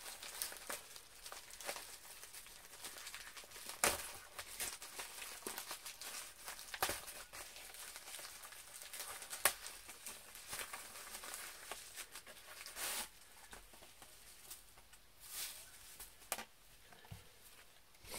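A mailing envelope being torn open and crinkled by hand: continuous rustling and crackling broken by sharp rips, the loudest about 4 and 9.5 seconds in, quieter in the last few seconds.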